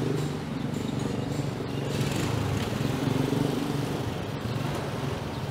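A vehicle engine running close by over street traffic noise, slightly quieter than the moment before it.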